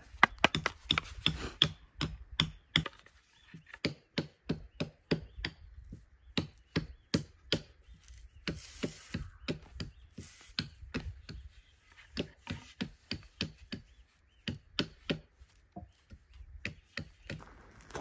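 A blade chopping on wood with rapid strikes, about three or four a second, in runs broken by short pauses.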